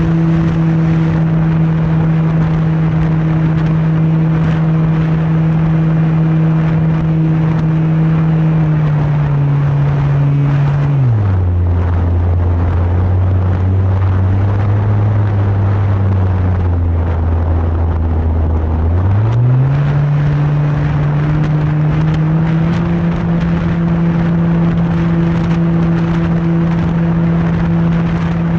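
Remote-controlled PC-21 model airplane's motor and propeller droning steadily in flight. It throttles back to a much lower pitch about ten seconds in, holds there for several seconds, then throttles up again to the original pitch about twenty seconds in.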